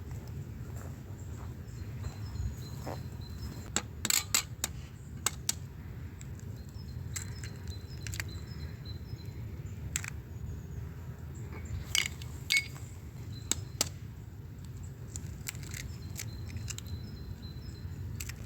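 Scattered sharp clinks and taps of hard objects, a few at a time with clusters about four seconds in and around twelve seconds, over a steady low rumble, with faint bird chirps high above.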